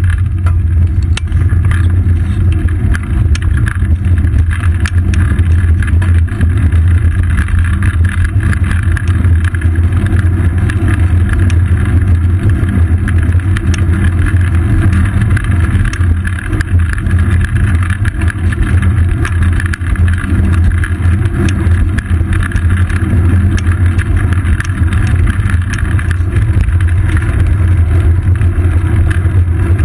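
Steady, loud rumble of wind and road vibration picked up by a seat-post-mounted GoPro on a moving road bicycle, unchanging throughout.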